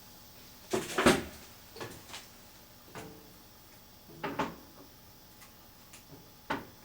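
Handling noises: a scattered series of short knocks and clunks as objects are moved and set down, the loudest about a second in and another sharp one near the end.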